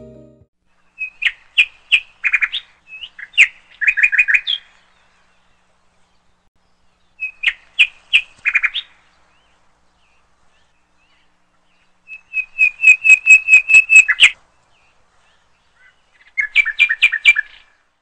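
A small songbird calling in four bouts of quick, clipped chirps with pauses between them. In some bouts a few high notes drop to a run of lower repeated notes, and one bout is a fast, even series of about a dozen chirps.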